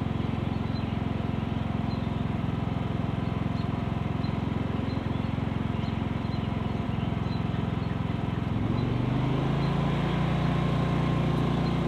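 Predator 9500 inverter generator running steadily with no load in eco mode, heard from about 21 feet away. About eight and a half seconds in, its engine speeds up and runs a little louder as eco mode is switched off.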